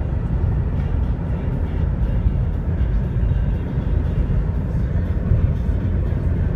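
Steady low road rumble heard inside a Chevrolet Cobalt's cabin as it drives along a highway: tyre and engine noise at a constant cruising speed.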